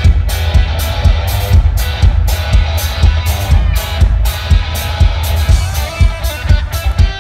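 Live rock band of distorted electric guitar and drum kit playing loudly, the drums keeping a fast, even beat under the guitar riff.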